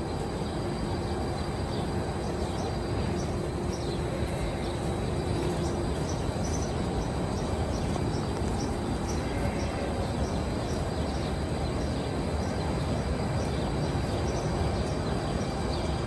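Steady rushing noise of large cow-barn ventilation fans, with faint high chirps repeating about twice a second through the middle.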